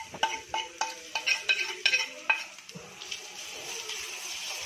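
A stirring utensil clicks and scrapes against a frying pan at about three or four strokes a second while sliced onion, curry leaves and masala paste are sautéed in hot oil. After about two and a half seconds the stirring stops, and a steady sizzle of frying is left, which cuts off abruptly.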